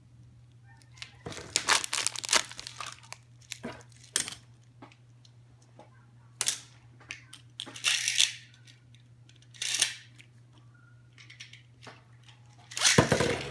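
Packaging being handled and unwrapped: short bursts of tearing and crinkling with small clicks, over a steady low hum. Music starts near the end.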